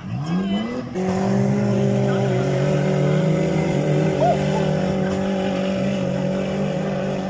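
Off-road SUV engine revving up briefly, then running at a steady pitch under load on a dirt course.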